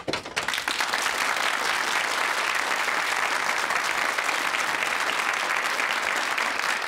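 Studio audience applauding: many people clapping, starting suddenly and holding steady.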